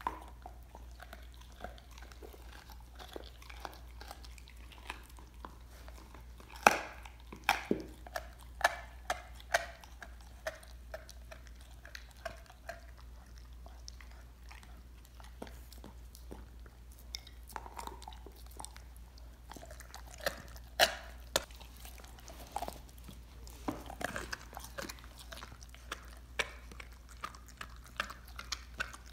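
A dog gnawing a raw lamb leg bone: irregular chewing with sharp cracks of teeth on bone, loudest in flurries about seven to ten seconds in and again around twenty seconds in.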